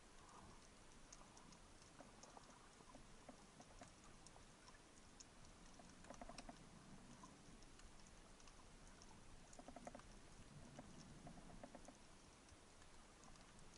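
Faint underwater crackle of scattered sharp clicks from life on a shallow rocky seabed. Short quick runs of lower clicks come about six and ten seconds in.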